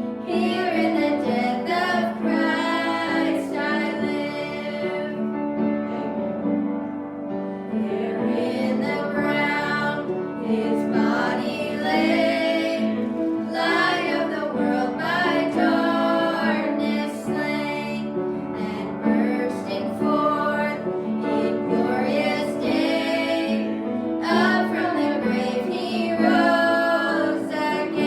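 Music: a woman singing a song over instrumental accompaniment.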